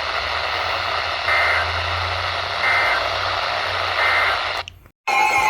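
Emergency Alert System broadcast on a hissing radio feed with a low hum: three short data bursts of the SAME digital header, each a two-tone screech, about a second and a half apart, announcing an incoming warning. Near the end the signal drops out briefly and a steady single-pitch alert tone begins.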